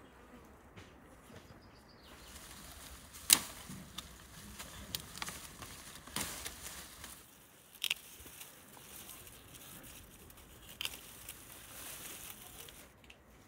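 Leafy herb stems and foliage rustling as they are picked by hand, with several sharp snips of garden shears cutting stems. The loudest snip comes about three seconds in.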